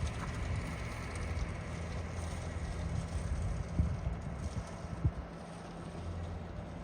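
Township snowplow truck's engine running with a low, steady drone as it works the road, with a couple of faint clicks.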